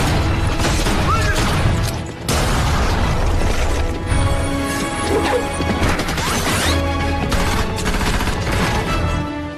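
Action-film battle soundtrack: dramatic music score mixed with crashes and booms, with a brief drop about two seconds in.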